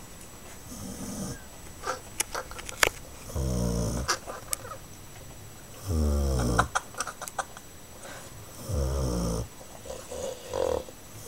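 Dog snoring in its sleep: three loud, rattling snores about two and a half seconds apart, each under a second long, with a few sharp clicks in between.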